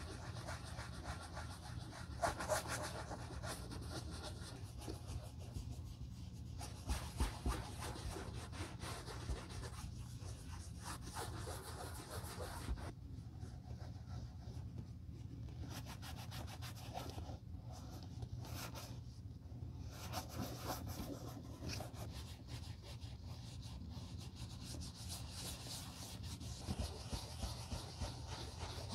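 A cloth rubbed by hand over the smooth black leather of a Blundstone 1448 Chelsea boot, in quick, uneven wiping strokes.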